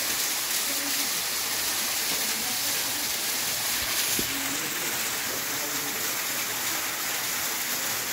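Small waterfall splashing into a shallow rock pool: a steady hiss of falling water.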